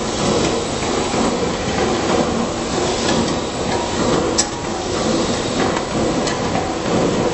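Screw conveyor for sand and cement running: a steady rattling rumble from the auger turning in its steel tube, with scattered sharp clicks, one louder about four seconds in.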